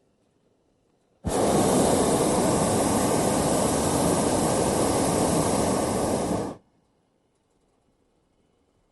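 Balloon taking off: a loud, steady rushing hiss that starts suddenly about a second in and cuts off abruptly about five seconds later.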